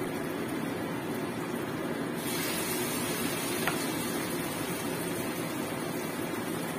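Hot oil sizzling in a frying pan as battered tempeh fries. About two seconds in, the sizzle turns brighter and hissier as another piece of batter-coated tempeh goes into the oil.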